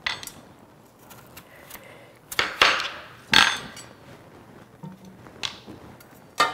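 Chef's knife cutting peeled raw potatoes in half and the halves set down in a stainless steel pan: a few separate knocks and clinks, the loudest about two and a half and three and a half seconds in.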